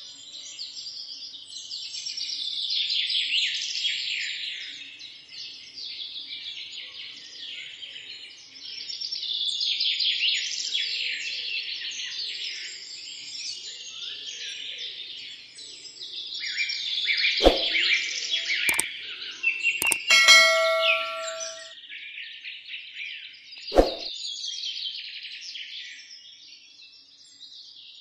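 Birds chirping and trilling in a dense chorus that swells and fades every few seconds. In the second half a few sharp clicks sound, and about twenty seconds in there is a short ringing tone.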